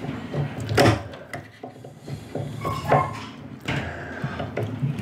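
Irregular clicks, knocks and scrapes of a hand tool and fingers working at a model-airplane engine mount inside the wooden fuselage nose, tightening a mounting nut, with a short squeak about three seconds in.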